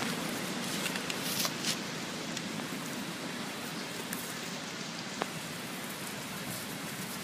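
Steady outdoor background hiss with a few faint, brief clicks.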